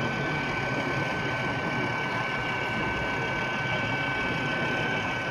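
Model trains running on an exhibition layout: a steady mechanical running noise with a constant high whine, over the general background noise of the hall.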